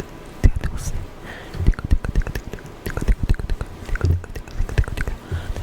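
Keys of a backlit keyboard being pressed in an uneven run: crisp clicks, each with a low thud as the key bottoms out.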